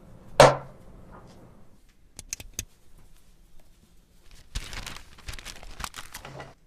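Handling of a hard-shell glasses case and things on a wooden table: a loud sharp clack about half a second in, a few quick clicks about two seconds in, then a run of clicks and rustling near the end.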